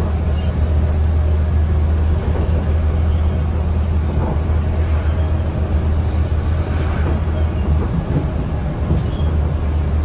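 Cummins Westport C Gas Plus CNG engine, an 8.3-litre inline-six, droning steadily with a strong low hum, heard from inside the cabin of a 2006 NABI 40-LFW transit bus, along with road noise.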